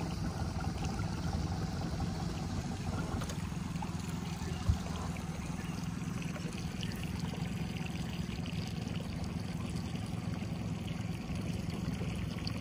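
Water trickling and lapping along a small boat's hull over a steady low rumble, with a single thump about five seconds in.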